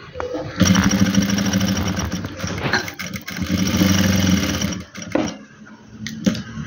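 Electric sewing machine running at speed as a seam is stitched: two long runs with a brief slowdown about halfway, stopping about five seconds in.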